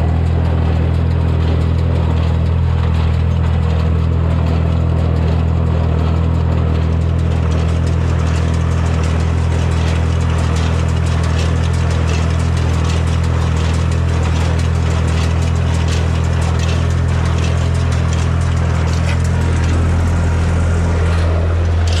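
Massey Ferguson 245 tractor engine running steadily while pulling a Massey Ferguson 120 small square baler through hay, with a rapid light clatter from the baler's mechanism joining in from about seven seconds in.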